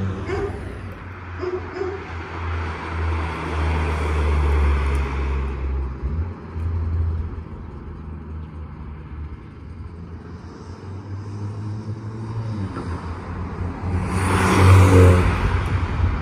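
Golf R's turbocharged 2.0-litre four-cylinder heard through an AWE SwitchPath catback exhaust. The exhaust note builds over the first few seconds and drops off about six seconds in. It swells again to its loudest about fifteen seconds in.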